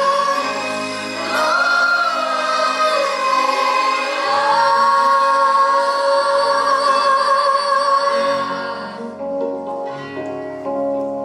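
Children's and teenage choir singing a slow ballad in long, held notes with vibrato over an instrumental backing; the voices drop away about nine seconds in, leaving the accompaniment.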